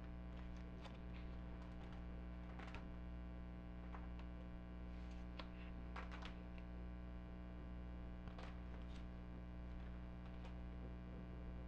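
Steady electrical mains hum, with faint scattered crinkles and rustles of plastic binder sleeve pages being turned by hand.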